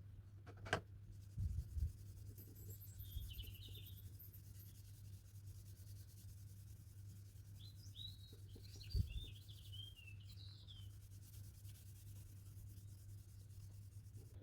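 Faint rubbing of a cloth working Gunstock oil finish into a wooden hammer handle, with a few light knocks, over a steady low hum. Birds chirp twice, a few seconds in and again past the middle.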